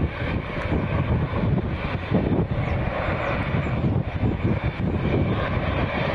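Boeing 787 Dreamliner's twin jet engines running, a steady rumble with a hiss above it.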